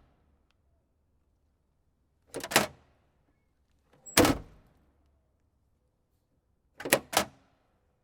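Car trunk lid and latch: three separate sharp thunks with latch clicks, a double knock about two and a half seconds in, one heavy thunk a little past four seconds, and two quick knocks near the end.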